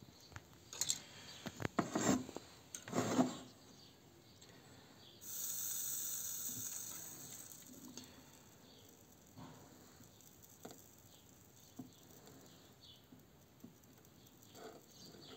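Soldering iron sizzling softly on the solder joints of a Fiat Tipo Digiplex 2 ignition module as they are reflowed in a repair. It starts suddenly about five seconds in and fades over a few seconds, after a few rubbing and scraping noises near the start.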